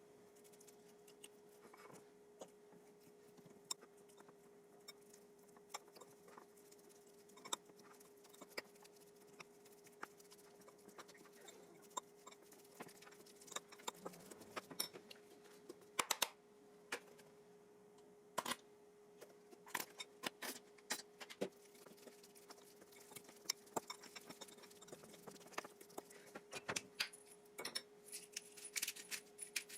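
Kitchen food-preparation sounds: scattered light clinks, taps and knocks of utensils and dishes, more frequent in the second half, over a steady low hum.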